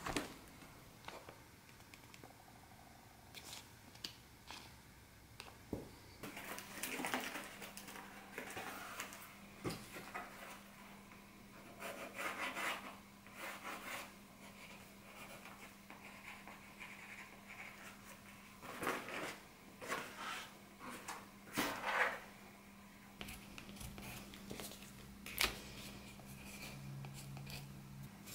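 Cardboard pattern pieces being handled, cut and traced with a pencil: scratchy rustling in several bursts with scattered short clicks, over a faint steady hum that begins about six seconds in.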